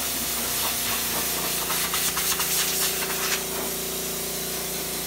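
A small handheld blower runs steadily: a loud rushing hiss over a constant motor whine as it blows sawdust off a workbench. A run of small ticks comes in the middle.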